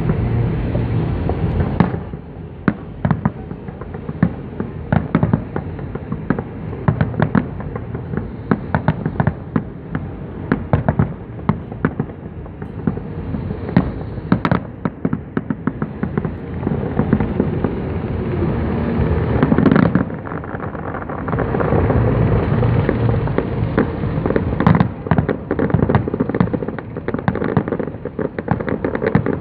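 Fireworks display: a continuous barrage of bangs and crackling pops, many a second, over a low rumble.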